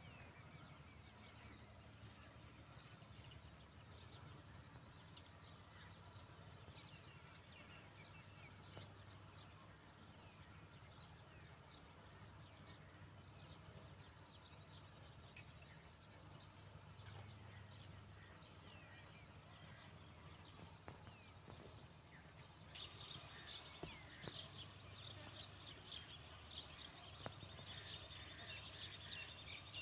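Faint rural outdoor ambience of small birds chirping, becoming busier and louder about three-quarters of the way through, with a few faint knocks near the end.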